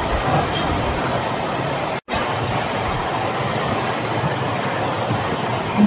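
Heavy rain pouring down, a steady dense hiss, cut off for an instant about two seconds in.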